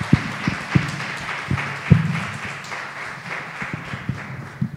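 An audience applauding, many people clapping at once, the applause thinning out over the last couple of seconds.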